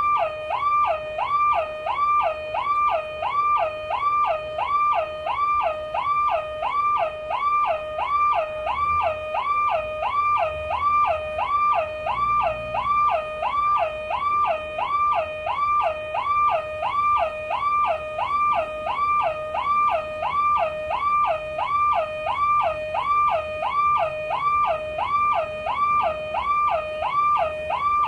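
Car alarm sounding: an electronic siren tone that swings up and down between a low and a high pitch about one and a half times a second, repeating steadily without a break.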